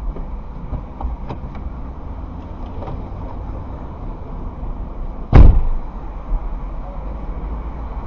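A car's driver door slamming shut with one heavy thump a little over five seconds in, heard from inside the cabin, after a few light clicks as the door is opened and the driver climbs out. A steady low rumble runs underneath.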